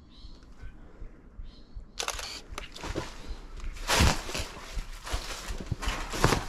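Film SLR camera being handled and fired: a quieter start, then a series of sharp clicks and knocks from about two seconds in, the loudest about four seconds in.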